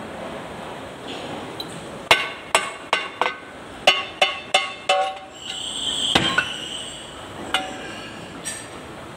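Sharp metal-on-metal knocks, about nine in three seconds, as the rear axle housing of a Kubota L-series tractor is worked loose from the transmission case. They are followed by a scrape and one heavy knock as the housing comes away.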